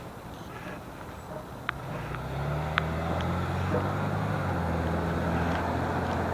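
A motor vehicle's engine running close by, coming up in level about two seconds in and then holding steady, with a few sharp clicks early on.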